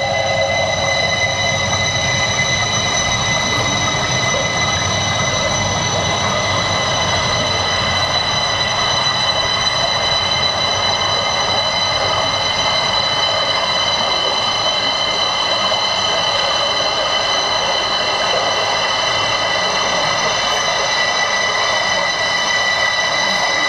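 Steady drone from a dance piece's soundtrack: a dense, even rumble with several high, held tones laid over it, unchanging in level.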